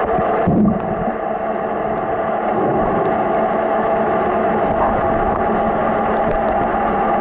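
Muffled underwater noise picked up by a camera in the water, with a steady low hum and a brief low whoosh about half a second in.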